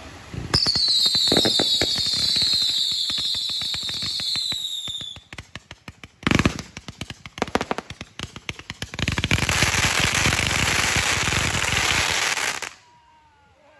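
A fireworks finale barrage. Several shrill tones fall slowly in pitch over rapid crackling for the first few seconds. A loud bang comes about six seconds in, followed by scattered pops, and from about nine seconds a dense wall of crackling that cuts off abruptly near the end.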